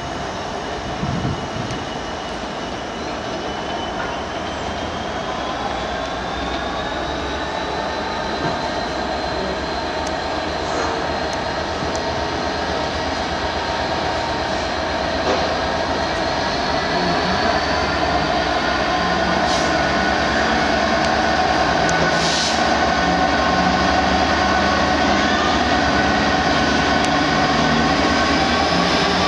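A Freightliner Class 66 diesel locomotive with a two-stroke V12 engine, approaching slowly at the head of a container train. Its running grows steadily louder, with a high whine that rises slowly in pitch.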